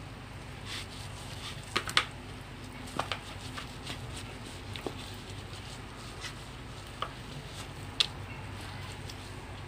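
Raw pork spareribs being handled in a plastic bowl: soft squishing of wet meat with a few sharp taps against the bowl, the loudest about two seconds in and near the end, over a low steady hum.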